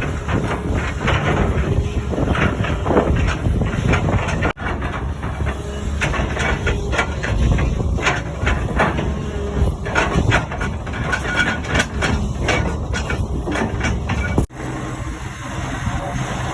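Excavator working: a heavy engine running steadily, with frequent knocks and metallic clatter over it. The sound cuts out abruptly twice, at about four and a half seconds and near the end.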